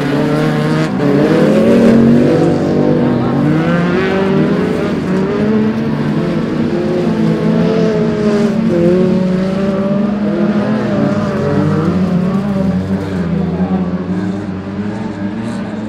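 Engines of several autospeedway racing cars revving hard on a dirt oval, their overlapping pitches rising and falling as they accelerate through the corner and pass. They fade somewhat near the end as the cars draw away.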